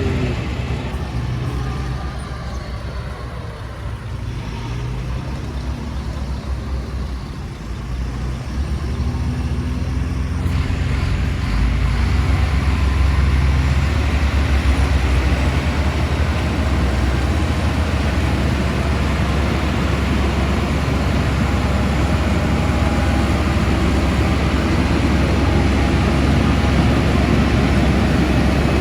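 Heavy diesel construction machinery running with a deep, steady engine rumble, which grows louder about ten seconds in and stays loud.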